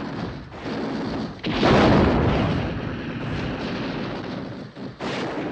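Battle sounds of explosions and gunfire: a loud blast about a second and a half in that dies away slowly, and another sudden blast near the end.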